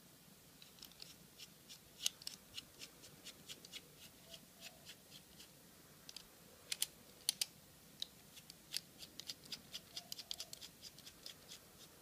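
Small, sharp metal clicks from a precision screwdriver working on a padlock's brass core to take the lock apart. They come irregularly, several a second, some in quick pairs.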